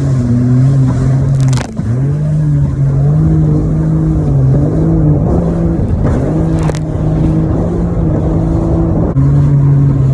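Personal watercraft (jet ski) engine running under way, a steady loud drone that shifts slightly in pitch and dips briefly about two seconds in, over a constant hiss of spray and wind.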